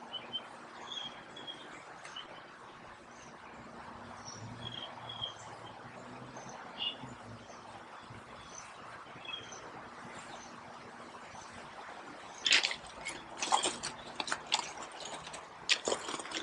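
Small birds chirping over a steady background. About twelve seconds in, irregular crunching footsteps on loose river stones begin and become the loudest sound.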